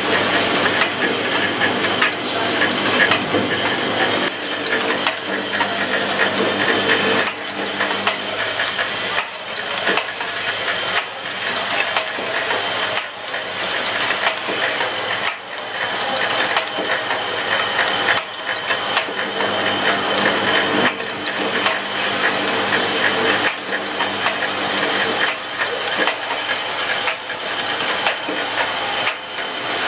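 Automatic socket-parts assembly machine running, its rotary-table stations making a continual run of quick clicks and clacks over a steady hum.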